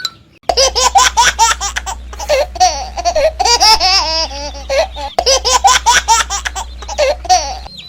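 High-pitched laughter like a baby giggling, a sound effect heard in two runs with a brief break about five seconds in.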